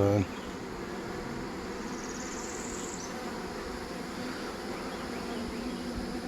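Honey bees buzzing steadily at an open hive, a continuous hum of many bees.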